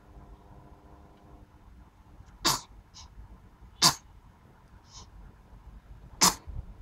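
Three sharp sneezes, the second about a second and a half after the first and the third about two and a half seconds later, with two fainter short puffs between them.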